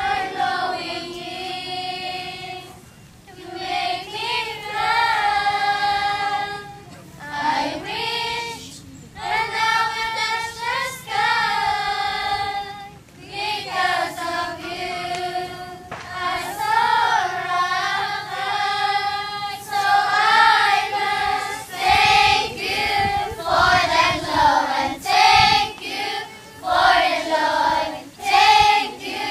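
A group of children, mostly girls, singing a song together in phrases of a few seconds with short pauses between them.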